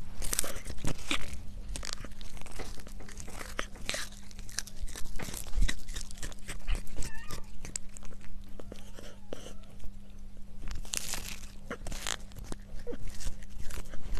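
A cat chewing on a treat held in its paws, with many small irregular clicks of the bites and chews, over a steady low hum.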